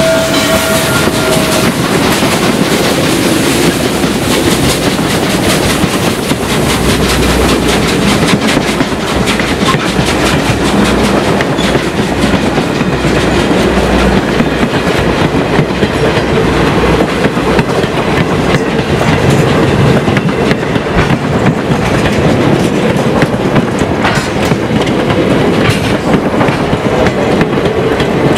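Norfolk and Western 611, a 4-8-4 steam locomotive, and its train of passenger coaches rolling past at close range, wheels clacking steadily over the rail joints. The last of its steam whistle dies away about a second in.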